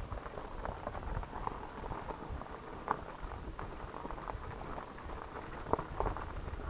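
Fat-tyred mountain bike riding over a rough trail: a steady rumble of tyres on the dirt, broken by irregular small clicks and knocks from stones and the bike rattling, with a sharper knock about three seconds in and another near the end.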